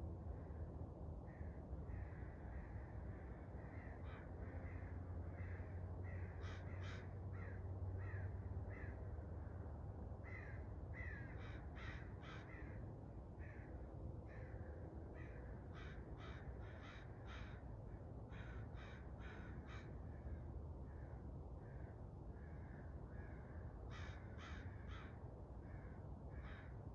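Birds calling at dawn, short repeated calls coming one after another, often in quick series, over a steady low rumble.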